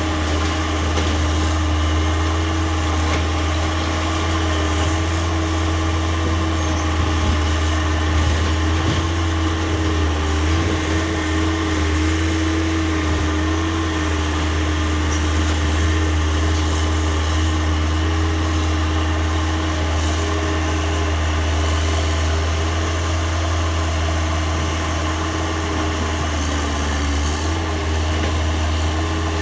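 Case 445 skid steer's diesel engine running steadily, its pitch wavering briefly around the middle and dipping once near the end.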